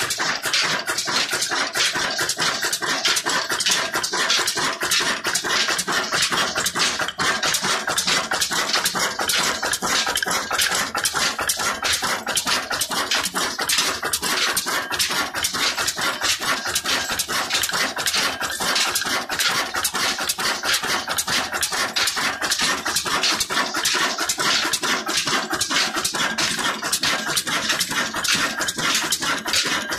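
Old Ruston Hornsby stationary diesel engine running steadily, with a fast, even clatter of knocks from its valve gear and fuel pump.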